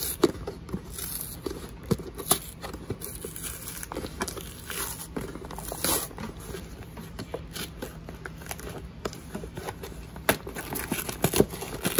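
Cardboard box flap being pulled up and torn open by hand: irregular scratchy tearing and crinkling with many small sharp clicks.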